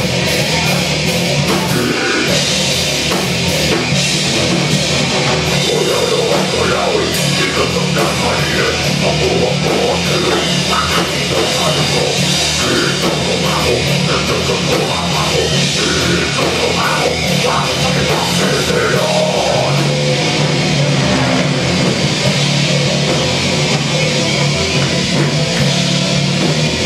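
Live rock band playing loud and without a break: drum kit and electric guitar.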